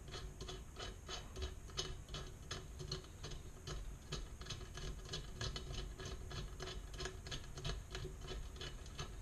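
A bolt being turned with a multi-tool: a quiet, steady run of small metal clicks and rubbing, several a second.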